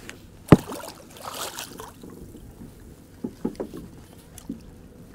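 A sharp loud knock against the boat, then a second or so of splashing and a few lighter knocks and clatters as a hooked fish is brought to the boat's side.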